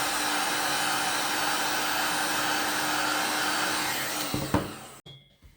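Hot-air blower running steadily, heating a sticker to soften its glue: an even rush of air with a faint steady hum. It winds down near the end, with a click as it is switched off.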